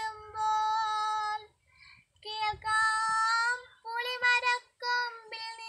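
A young girl singing a Malayalam poem solo and unaccompanied, holding long, steady notes with short pauses between lines.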